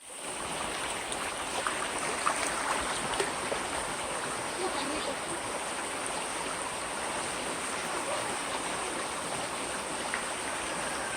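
River water rushing steadily over rocks, a continuous even wash of flowing water.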